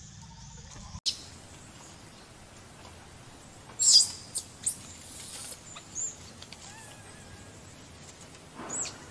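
Baby macaque screaming in high, arching cries: a loud run of cries about four seconds in, a short one around six seconds and another near the end. It is the distress crying of a baby being weaned.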